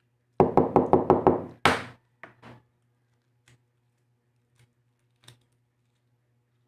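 A boiled egg knocked hard against a tabletop to crack its shell: about seven quick raps in a second, then one harder knock and two lighter taps, followed by faint ticks of the shell being picked.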